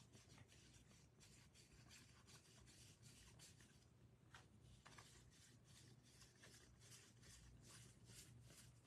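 Faint flicks and rubbing of baseball trading cards being slid off a fanned stack one after another by hand, about three soft flicks a second.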